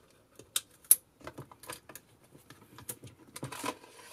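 Clicks and taps of metal and plastic parts handled on a Krasnogorsk-1 16mm camera as the inner plate of its film chamber is worked loose and lifted out. There are two sharp clicks about half a second and a second in, then lighter ticks and a brief scraping near the end.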